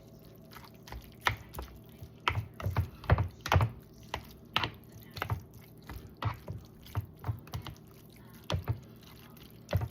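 Cooked orzo pasta being stirred into a thick tomato and cheese sauce: irregular clicks and knocks of the utensil against the dish, with wet stirring sounds.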